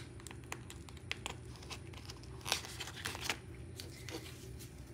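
Clear plastic zipper pouch of a cash envelope binder being unzipped and handled: a run of soft plastic crinkles and small zipper clicks, the loudest about halfway through.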